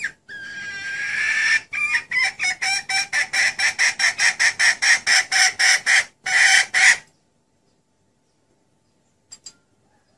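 Female red junglefowl calling: a drawn-out note, then a fast run of clucks about four a second, closing with a longer cackle about seven seconds in. It is a hen's call of the kind used as a lure to draw in junglefowl cocks.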